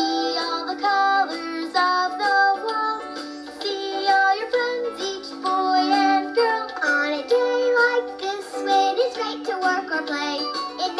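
A children's song: a child's voice singing a bouncy melody over instrumental accompaniment.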